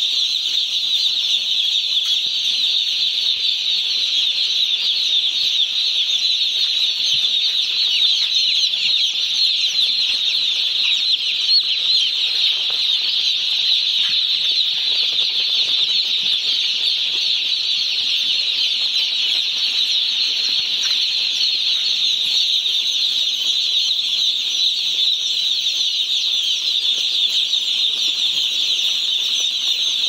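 A large flock of day-old chicks peeping all at once: a dense, high-pitched chorus of overlapping cheeps that never lets up.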